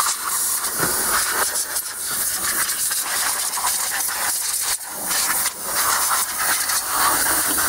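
A jet of blown air hissing steadily as loose leaves and dirt are blown out of the engine bay around the intake manifold, with a couple of brief breaks about five seconds in.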